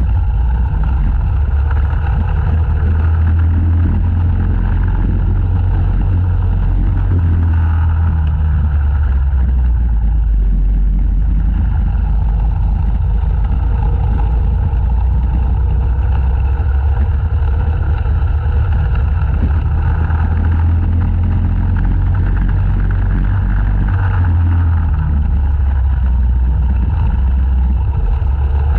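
Racing go-kart engine running hard on board, its note rising and falling through the corners, close behind another kart, with heavy low wind rumble on the microphone.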